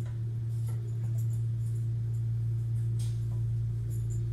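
Steady low hum inside the passenger cabin of a Kintetsu 80000 series Hinotori limited express train, with a few faint clicks.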